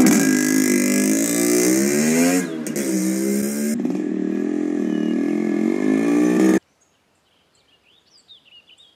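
Motorcycle engine running and revving, its pitch rising and falling, until it cuts off abruptly about two-thirds of the way in; a few faint high chirps follow.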